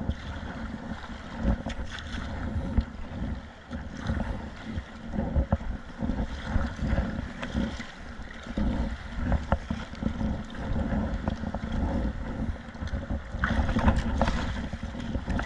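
Wind buffeting the microphone in uneven gusts over water splashing and sloshing around a kayak in rough sea.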